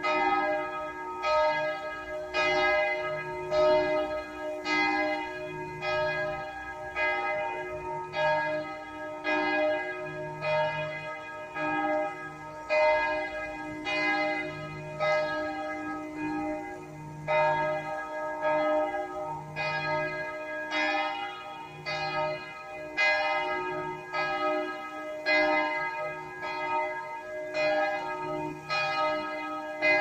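Several church bells ringing together in a continuous peal. The strikes come about once a second and overlap, each bell ringing on at its own pitch.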